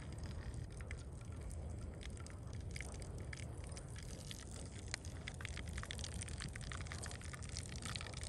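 Hot liquid in a tin can over embers, popping and crackling in small irregular ticks as it is stirred and a bundle is dipped in it, over a steady low rumble.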